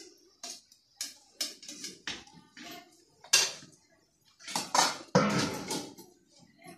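Steel dishes and utensils clinking and clattering: a string of sharp metallic knocks, some briefly ringing, with a longer, louder clatter a little before the end.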